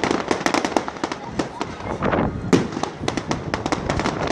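Fireworks display: a rapid, unbroken run of crackling pops and bangs, several every second.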